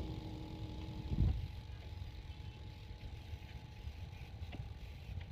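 A steady low rumble of an engine running, with a faint steady tone that stops a little over a second in, alongside a brief louder swell.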